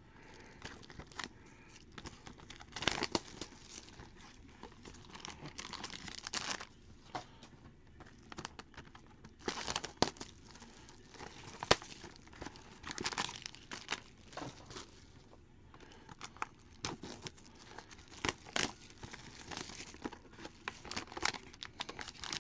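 Clear plastic shrink-wrap and foil wrappers being torn off trading card boxes and crumpled by hand: irregular crinkling with short rips and crackles throughout.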